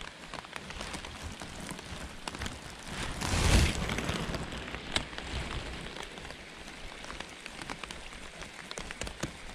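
Steady rain falling on the river and bank, a fine patter of many small drops. A brief louder whoosh swells about three and a half seconds in, and a single sharp click follows about a second later.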